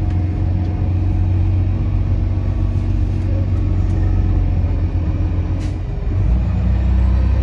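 Truck engine running with a steady low rumble. About six seconds in, after a short click, the rumble deepens and grows a little louder.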